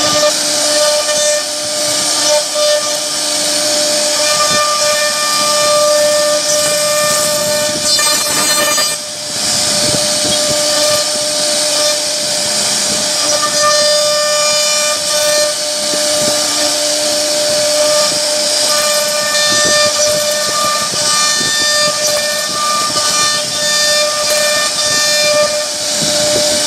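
CNC router spindle carving a wooden door panel: a steady high-pitched whine over the hiss of the bit cutting wood, dipping briefly about nine seconds in.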